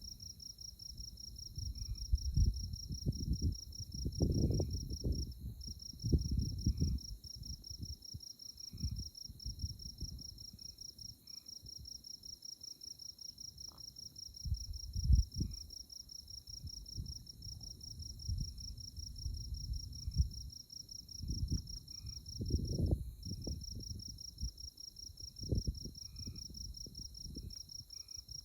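Night insects in tallgrass prairie chirping in a continuous trill of fast, even pulses, high in pitch, broken briefly twice, over a fainter steady high drone. Irregular low rumbles come and go beneath it and make the loudest moments.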